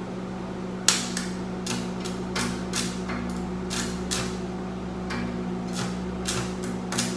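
Stick-welding electrode being struck against steel: the arc catches in short crackling bursts, about two or three a second from about a second in, and keeps going out again, over a steady hum. The arc won't stay lit and the rod sticks because the welder's amperage is set too low.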